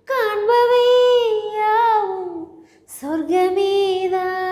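A woman singing a Tamil film song unaccompanied, holding two long notes without words: the first sinks in pitch at its end, then after a short breath a second, lower note is held.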